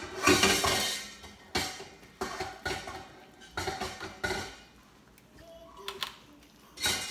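Hands rubbing soft herb butter over a raw turkey in a disposable aluminium foil roasting pan: irregular wet squishing and crinkling of the thin foil, in quick bursts, with a quieter lull about five seconds in.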